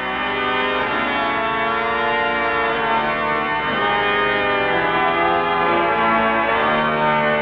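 Pipe organ playing slow, held chords, swelling in over the first second, with the notes changing every second or two.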